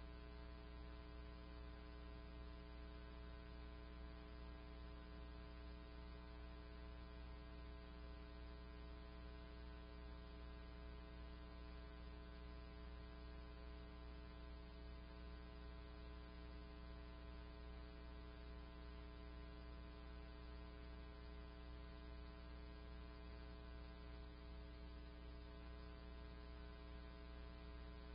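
Faint, steady electrical hum, a low buzz with many evenly spaced overtones and nothing else heard.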